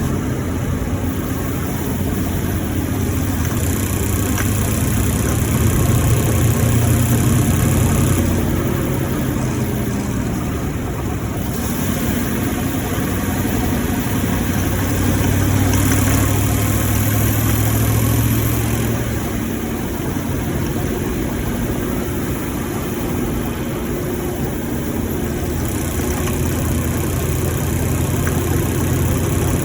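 2018 Ford F-150's V8 engine running steadily as the truck is driven, growing louder twice, around six and again around sixteen seconds in. The truck is being recorded for an engine knocking noise that shows up while driving.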